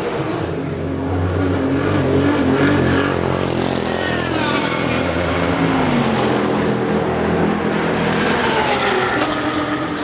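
Race car engines going past at speed, their pitch falling as they pass: one loudest about halfway through and another near the end, over a continuous engine drone.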